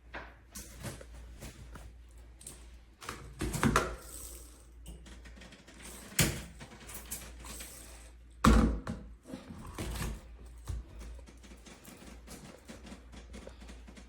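Irregular clicks and knocks of hard shower fittings being handled and fitted together, with louder thumps about four, six, eight and a half and ten seconds in.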